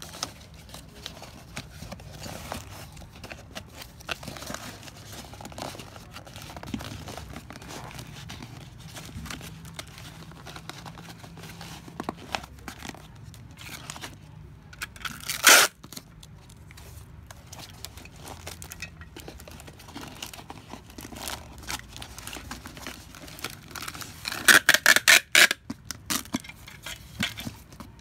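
A cardboard shipping box being opened by hand, with bubble wrap and shredded paper rustling and crinkling. There is one loud tear about halfway through and a quick run of tears near the end.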